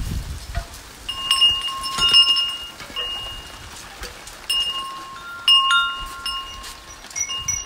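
Wind chimes ringing: clear metallic tones struck at irregular moments, several sounding together and ringing on for about a second each, over the steady hiss of rain.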